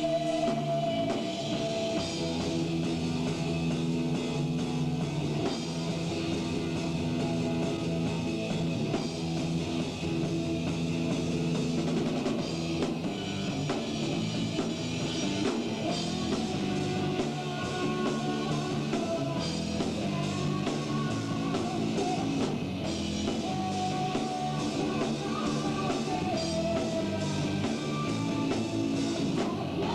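Rock band playing live: electric guitar and a drum kit, with a singer's voice at times.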